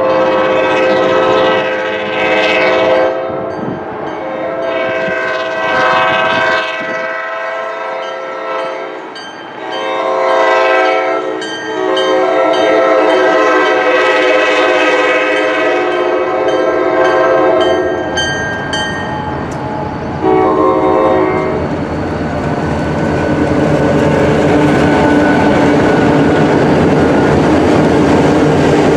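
Diesel locomotive horn on a Buffalo & Pittsburgh freight train blowing the grade-crossing sequence as it approaches: two long blasts, a short one, a long one, then another short blast. After that the lead locomotives pass close by, their engines running over the noise of the wheels on the rails.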